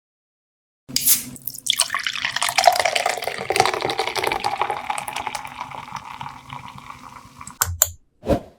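A string of separate sound effects. After a short noise burst comes about six seconds of splashing, pouring water that slowly fades. Then there are two quick clicks and a short sound near the end.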